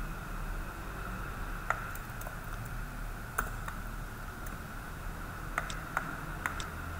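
About half a dozen scattered clicks from a computer keyboard and mouse, over a steady background hiss.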